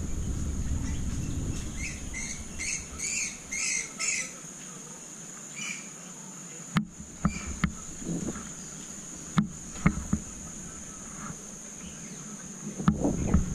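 Wind buffeting the microphone while riding, with a run of about five short high squeaks a couple of seconds in. The wind then drops away about four seconds in, leaving a steady high whine and a few scattered sharp clicks.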